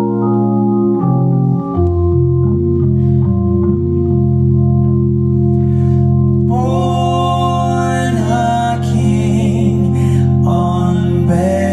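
Organ playing sustained chords that change every second or so, with a deep bass note coming in about two seconds in. Voices start singing over the organ about six and a half seconds in and again near the end.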